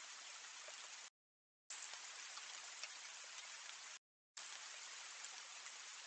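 Steady, even hiss of background noise picked up by a trail camera's microphone. It is broken by two short silences, about a second in and again about four seconds in, where one recording cuts to the next.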